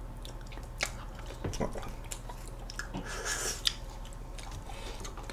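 Close-miked sounds of ice cream being eaten from small cups with plastic spoons: soft mouth and chewing sounds with scattered light clicks of spoon against cup, and a brief scrape a little after three seconds in.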